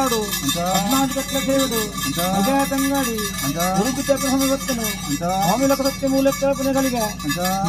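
A voice chanting a ritual song in repeated phrases, each gliding up, holding and falling away, about one every one and a half seconds, over a steady low hum.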